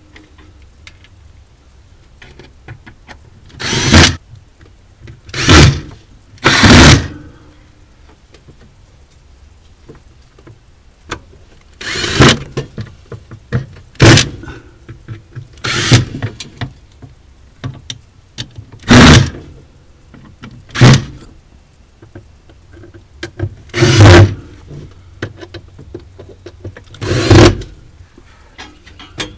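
Cordless drill/driver driving screws into the freezer's sheet-metal bracket: about ten short bursts of the motor spinning, each under a second, with pauses and small handling clicks between them.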